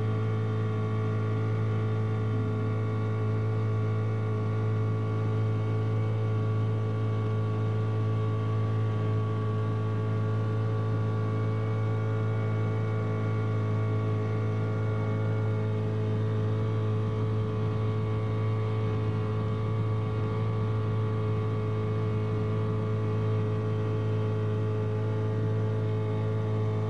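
A sailboat's inboard engine running at a constant speed while motoring: a steady, unchanging low drone.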